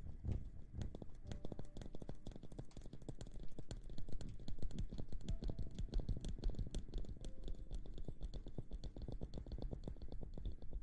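Close-miked ASMR scratching and rustling sounds: a dense, rapid run of crackly clicks.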